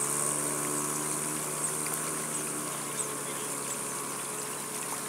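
Small motorcycle engine running as the bike rides away through floodwater, its hum fading out about halfway through, over a steady high hiss.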